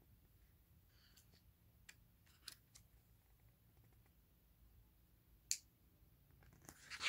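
Near silence: room tone with a few faint clicks from handling a picture book, the sharpest about five and a half seconds in.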